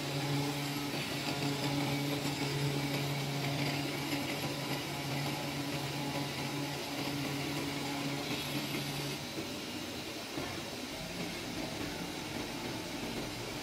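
CNC oscillating-knife cutting machine working a thick polyester fibre felt board: a steady mechanical hum that cuts off about nine seconds in, leaving a quieter, lower hum.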